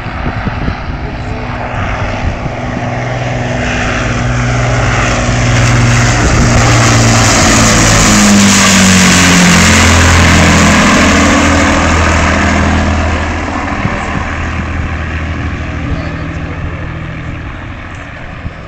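Avro Lancaster bomber's four Rolls-Royce Merlin piston engines on a low flypast: the drone grows louder, peaks as the aircraft passes close overhead about ten seconds in, drops in pitch and fades as it flies away.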